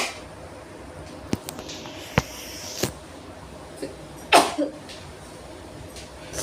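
A person sneezing after sniffing chikni sneezing powder: the tail of one sneeze right at the start and a loud sneeze about four seconds in, with a few small clicks and a short hiss between.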